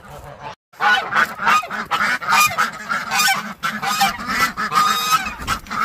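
A flock of geese honking over and over, many calls overlapping, with a brief gap about half a second in.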